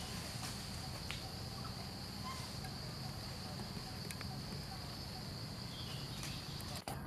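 Insects buzzing at one steady high pitch, over a low background hum, with a few faint clicks; the sound drops out for an instant near the end.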